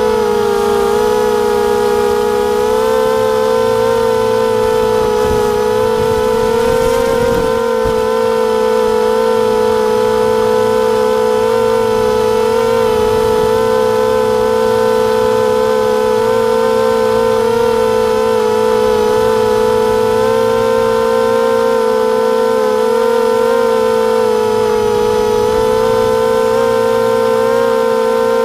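250-size FPV racing quad's brushless motors and propellers whining, heard from the onboard camera: a loud steady high whine whose pitch wavers slightly with throttle.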